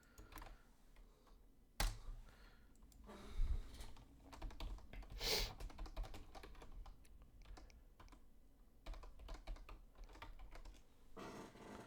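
Typing on a computer keyboard: a string of quiet key clicks, with one sharper click about two seconds in.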